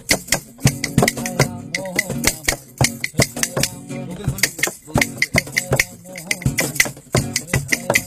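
Instrumental break in a Bengali folk song: a quick steady beat of hand percussion and shaker under a wavering melody line, with no singing.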